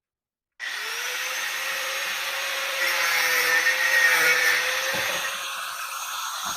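Table saw running and cutting through wood: a steady motor hum with a loud rushing noise. It cuts in abruptly about half a second in and grows louder in the middle as the blade is in the board.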